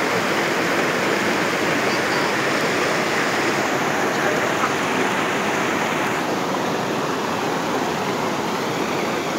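Shallow rocky river running over stones and small rapids: a steady rush of water.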